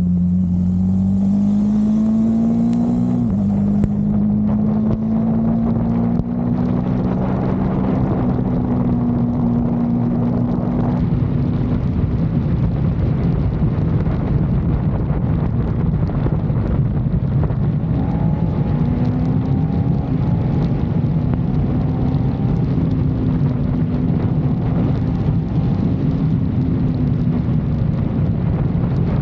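KTM 390's single-cylinder engine running steadily while riding, its pitch wandering up and down a little and stepping once a few seconds in, over a constant rush of wind and road noise.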